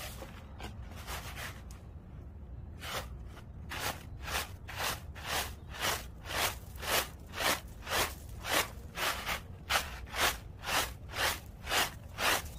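Dried acorns and their cracked shells rattling in a woven winnowing basket as it is tossed, about two tosses a second from about three seconds in, winnowing the loose shells from the kernels. A steady low rumble runs underneath.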